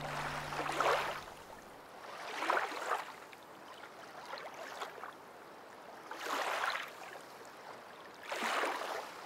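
Water washing in slow swells, like waves, four of them about two seconds apart, each rising and falling away.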